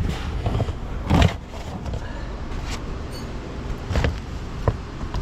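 Knocks and clicks of plastic trim being handled under the passenger-side dashboard to reach the cabin air filter, the loudest about a second in and a few more near the end, over a steady low hum.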